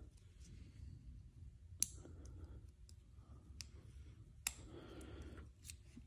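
Faint, scattered clicks of a small plastic wiring connector being handled by hand, about four sharp clicks with the loudest about two seconds in.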